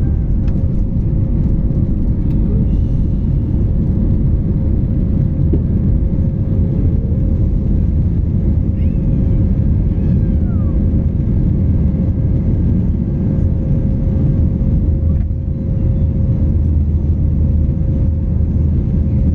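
Airbus A320 jet engines running at high power, heard from inside the cabin as a loud, steady low rumble with a steady whine above it.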